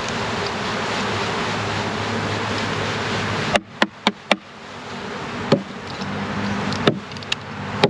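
Thousands of honeybees buzzing loudly as a package of bees is shaken into a hive. About three and a half seconds in the buzzing breaks off abruptly, then come several sharp knocks, likely the package box being tapped to knock the bees out, while the buzzing builds again.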